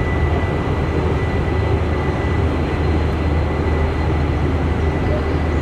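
Steady, loud low rumble of boat engines from patrol boats running past on the river.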